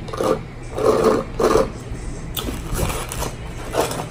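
Three loud slurps through a drinking straw from a foam cup within the first second and a half. A few softer clicks and scrapes follow.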